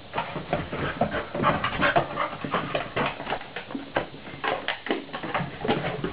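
Soft-coated wheaten terrier panting and whining in excitement at a greeting, a quick, irregular run of short breaths and whines.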